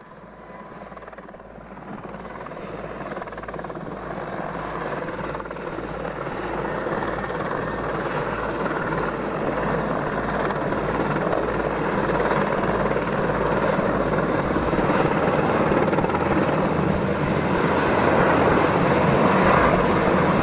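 Mil Mi-26 heavy-lift helicopter flying low and approaching, its rotor beat and turbine noise growing steadily louder.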